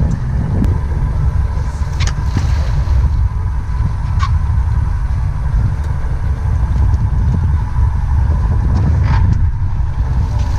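Strong wind buffeting the microphone as a dense, steady low rumble, with a faint steady whine and a few brief knocks.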